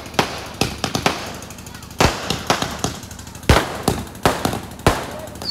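Aerial fireworks bursting overhead in a rapid run of bangs and pops. The loudest bangs come about two seconds in and again about three and a half seconds in, each followed by a quick scatter of smaller pops.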